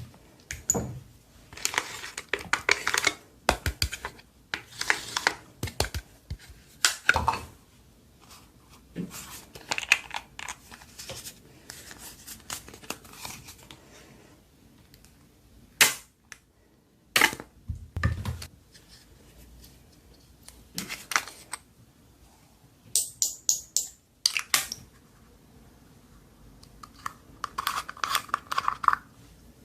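Slime being squished and stretched by hand: irregular wet clicks, crackles and pops in clusters, with a couple of short quiet gaps.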